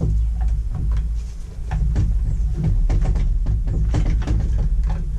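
Scattered clicks and knocks of plastic and metal parts being handled while a petrol multi-tool is taken apart, over a steady low hum.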